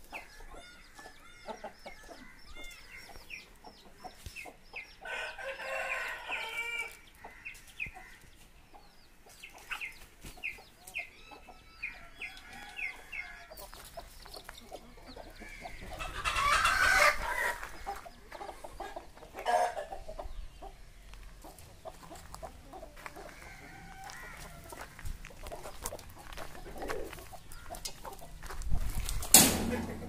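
A flock of backyard chickens: hens clucking, a rooster crowing, and small chicks peeping in short high chirps throughout. A loud thump near the end.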